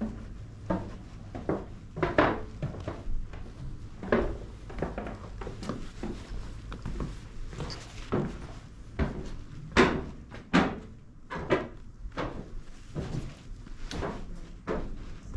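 Irregular knocks and thumps, roughly one a second, over a low steady hum.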